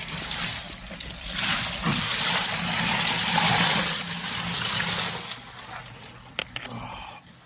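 Ice-bath water splashing and streaming off a body as a man stands up out of the tub. It is loudest between about two and four seconds in, then tapers off, with a few small knocks near the end.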